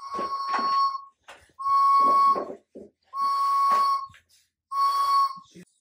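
A toddler blowing a small pink plastic toy horn four times, each blast a steady high note lasting about a second, with short breaks between.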